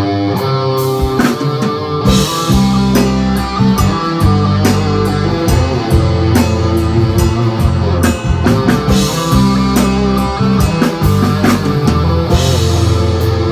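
Band playing an instrumental passage of a Thai pop-rock song: guitar lines over a drum kit beat and bass, with no singing.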